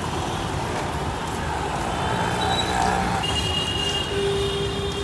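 Steady outdoor background noise of road traffic, with a faint steady whine joining about three seconds in.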